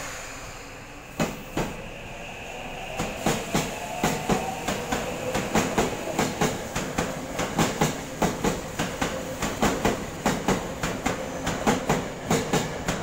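Tokyo Metro 8000 series electric train departing a station: its wheels clack over the rail joints, the clacks coming faster as it picks up speed, over a steady running rumble and a faint motor whine. A single loud clack comes a little over a second in.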